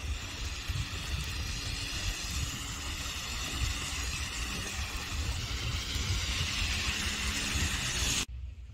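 Street traffic running on a snowy, slushy road, a steady hiss of tyres and engines, with an uneven low rumble of wind on the microphone. It cuts off abruptly near the end.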